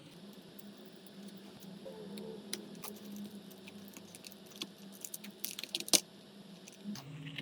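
Light, scattered clicks and scratches of hand tools working on an iPhone's cracked back glass as it is removed, with one sharp click about six seconds in, over a low steady hum.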